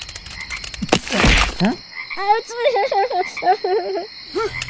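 Rapid, even croaking like a frog chorus, broken about a second in by a short loud burst of noise, then a run of warbling calls that swoop up and down in pitch.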